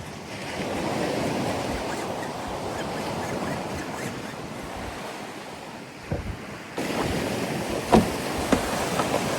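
Ocean surf washing steadily, with wind buffeting the microphone and a few short knocks in the second half.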